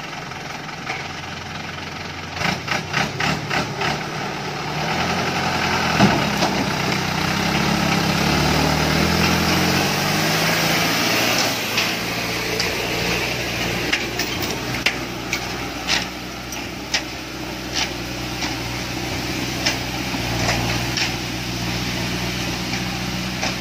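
Light truck's turbo-intercooled diesel engine labouring up a steep muddy slope, its pitch rising and wavering about six seconds in and then pulling steadily under load. A quick run of knocks a few seconds in and scattered clacks later come from the truck body and wheels over the rough ground.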